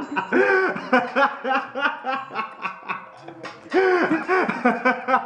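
A man laughing hard in quick repeated bursts, in two long fits with a short break about three seconds in, over music.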